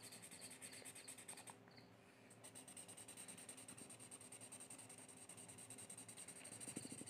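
Faint scratchy rubbing of a paper blending stump worked back and forth over graphite pencil shading on drawing paper, with a short pause about a second and a half in before the rubbing starts again.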